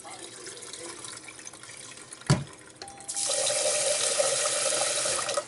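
Rice being swished by hand in water in a rice cooker's inner pot, then a sharp knock about two seconds in. About three seconds in, the kitchen faucet runs hard into the pot for about two seconds and shuts off abruptly, filling it to rinse the rice.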